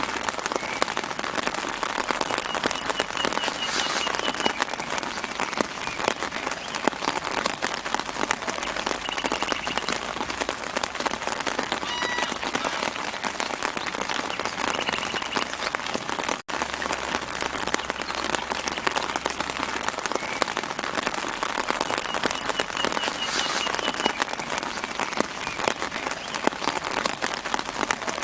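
Steady light rain pattering on leaves. A bird gives a short, high trill a few times. The sound cuts out for an instant about halfway through.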